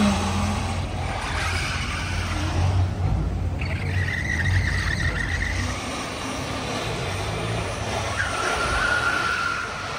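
Car engines running in street traffic with a steady low rumble. Two steady high-pitched tones sound over it, one about four seconds in lasting around two seconds, and another near the end.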